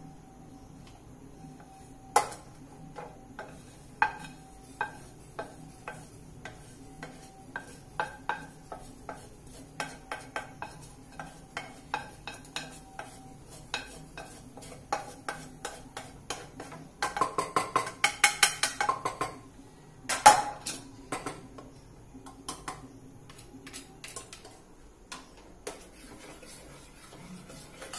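Metal spoon scraping and tapping a nonstick frying pan held over a pressure cooker, then stirring in the cooker: irregular clinks and scrapes, a quick run of rapid scraping about seventeen seconds in and a loud knock about three seconds later.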